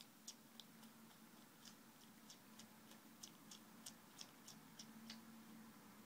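Faint, wet clicking of a cat sucking on its own paw, irregular at about two to three smacks a second, like a kitten nursing.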